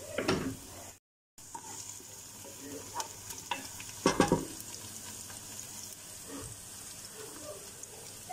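Chopped onion and pieces of fat frying in an aluminium pot, sizzling steadily, with a wooden spoon stirring and scraping against the pot in a few loud strokes, the loudest about four seconds in. The sound cuts out for a moment about a second in.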